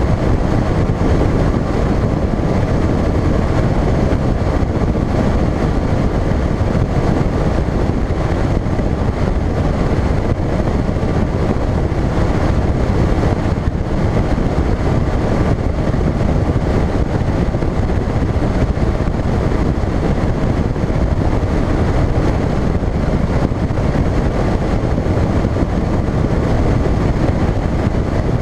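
Phoenix bass boat under way at speed: a loud, steady rush of wind and water over the hull, with the outboard motor running underneath.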